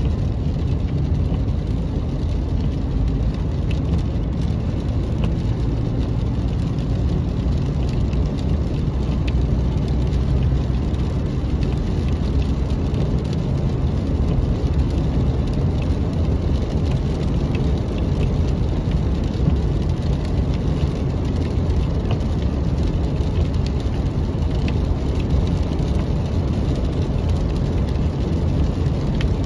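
Steady low rumble of a car driving on a wet road, heard from inside the cabin: tyre and engine noise.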